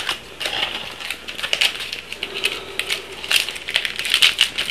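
Trading-card packs and cards being handled: a quick run of crinkling and clicking from pack wrappers and cardboard cards.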